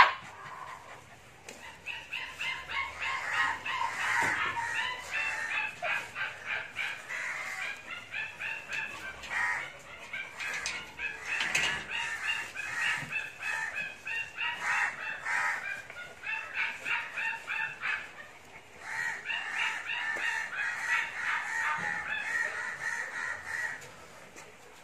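Rapid, repeated high-pitched animal calls, several a second, in long runs with a short break about eighteen seconds in. A sharp knock at the very start.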